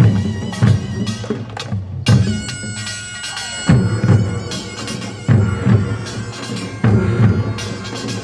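Korean nongak band playing, Gyeongsang-do style. Drums and small gongs are struck in a driving rhythm, with heavy accents about every second and a half, and a loud wind instrument sounds over them.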